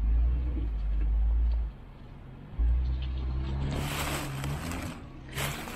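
Off-road Jeep engine running at low revs on a trail, with a heavy low rumble that drops away for about a second near the middle. Near the end come two short bursts of rough noise.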